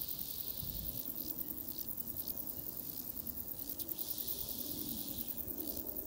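Insects in the meadow grass chirring steadily: a fast-pulsing, high-pitched buzz.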